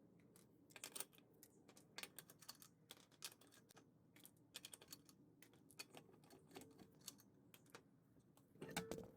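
Near silence with faint, irregular clicks and light taps, a short louder cluster of them near the end.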